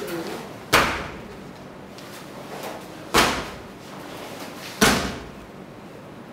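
Three sharp snaps of a karate uniform cracking with fast kata techniques: one under a second in, one about three seconds in, one about five seconds in. Each rings briefly in the hall.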